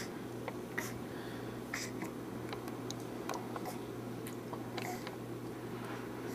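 Quiet room tone: a steady low hum and hiss, with scattered faint short clicks throughout.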